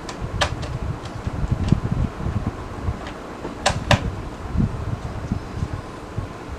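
Small screwdriver turning out a screw from a laptop's bottom panel. Low rubbing and handling bumps run throughout, with a few sharp small clicks: one about half a second in and two close together near four seconds.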